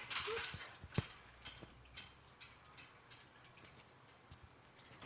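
A fading rustle, then a sharp click about a second in and a few faint scattered ticks and drips, from hands working the loosened oil filter free while oil drips from it.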